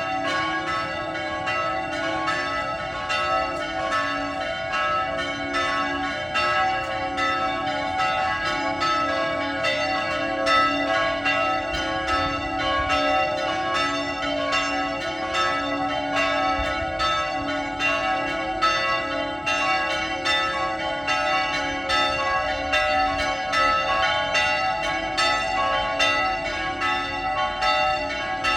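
Church bells pealing: several bells struck in quick, continuous succession, several strokes a second, their tones overlapping and ringing on. The peal announces the hour for pilgrimage and Mass.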